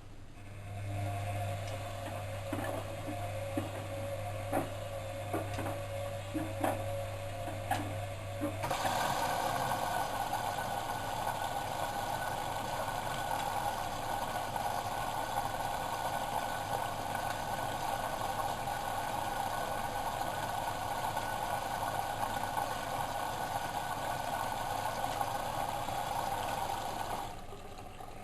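Bosch WFM3010 front-loading washing machine taking in water early in a colour wash. A low hum with scattered clicks, then from about nine seconds in a steady rush of water that stops shortly before the end.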